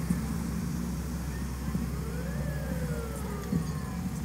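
Emergency vehicle siren on a slow wail: its pitch rises over about a second, peaks, then falls over about a second and a half, over a steady low rumble of engines and traffic. Two brief knocks, one right at the start and one about three and a half seconds in.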